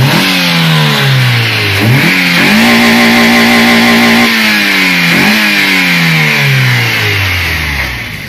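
MG ZS's Rover K-series four-cylinder engine, breathing through an open cone induction filter, revved by hand at the throttle. After two quick blips it is held high and steady for about two seconds, then gets one more short blip and slowly winds back down toward idle.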